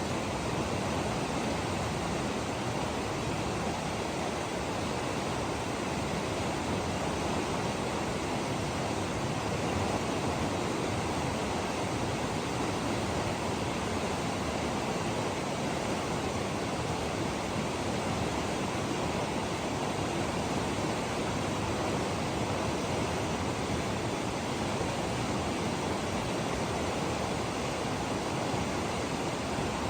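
Alpine river rushing: a steady, unbroken wash of water noise.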